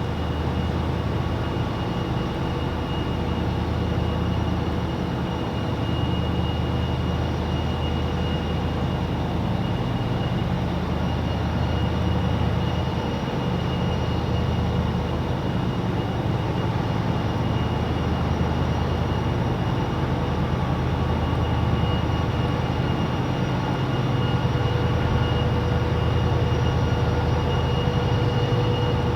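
Diesel engines of a river towboat pushing barges, a steady low drone with a constant whine above it, growing slightly louder near the end.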